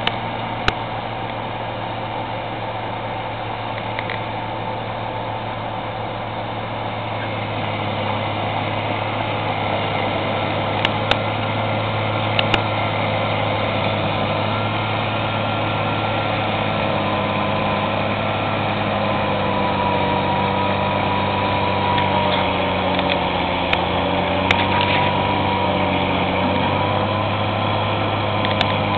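Loader-mounted Larue snow blower at work, its engine running steadily under load while it casts snow, growing louder as it comes closer. A steady whine joins in about two-thirds of the way through.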